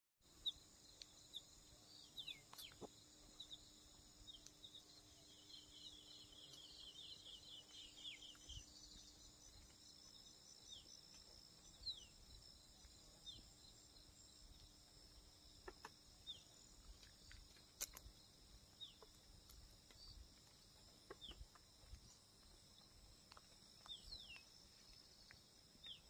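Faint natural ambience: insects keeping up a steady high-pitched drone, with a bird giving short calls that drop in pitch every second or two and a quick trill about five to eight seconds in.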